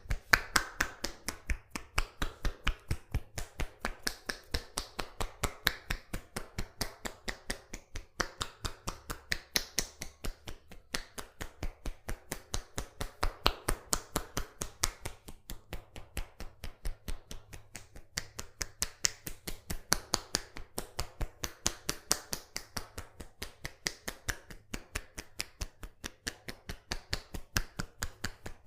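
Rhythmic hand tapping of a head massage: quick, sharp slaps or chops on the head and neck, about four a second and very even throughout, with light rubbing between the strikes.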